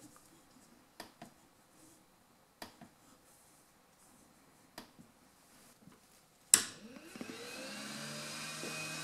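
A few soft, separate clicks of a unibody MacBook Pro trackpad. About six and a half seconds in comes a sudden click, then a hot-air rework station's blower starts up, its whine rising in pitch and settling into a steady rush of air.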